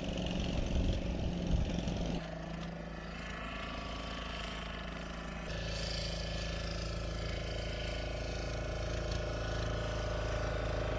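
A steady motor drone with low, even tones, changing abruptly twice.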